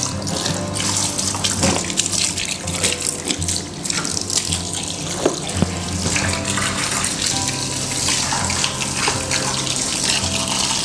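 Garden hose running, its water pouring and splashing into a plastic tub part-filled with water, over steady background music.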